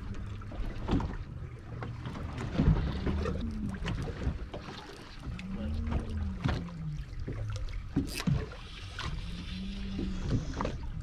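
Wind on the microphone and water around the hull of a drifting fishing boat, with short knocks and clicks from rods and reels being handled and a low hum that rises and falls in pitch a few times.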